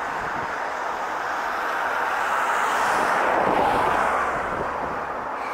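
Class 50 diesel locomotive's English Electric 16-cylinder engine running as it hauls a rail grinding train, a steady low drone that swells about two seconds in and eases off again near the end.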